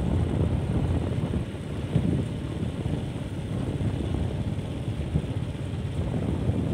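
Low, steady rumble of wind buffeting the microphone and road noise from a vehicle riding along a dirt road.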